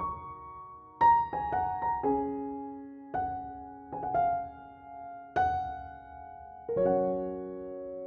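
Background piano music: slow, soft chords and single notes, each struck and left to ring.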